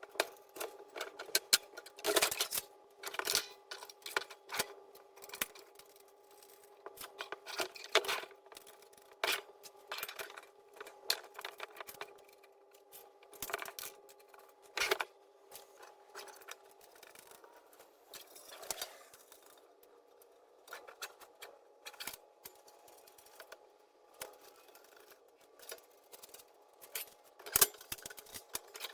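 Steel parts of a tool rack clinking and knocking as they are handled and fitted together: many short, sharp clicks at irregular intervals over a faint steady hum.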